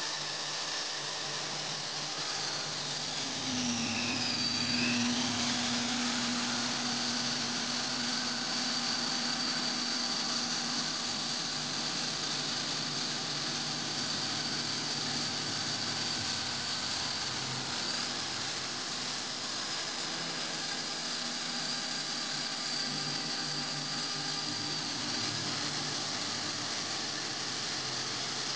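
Electric hand drill running steadily, spinning a metal plumb bob in its chuck while sandpaper held in the hand rubs against it, giving a motor whine over a sanding hiss. The whine dips briefly in pitch about four seconds in, then holds steady.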